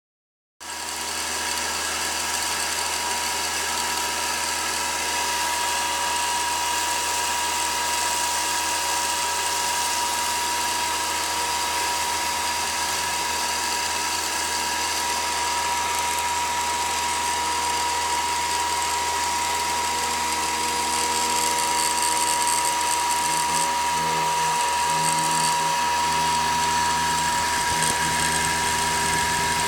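Terzago Easy 625 CNC machine's spindle whining steadily as a V-bit carves into marble. It starts about half a second in, with a strong steady tone and a slight shift in its lower tones near the end.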